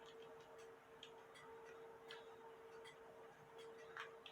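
Near silence: faint light ticks and clicks, unevenly spaced, over a steady faint hum.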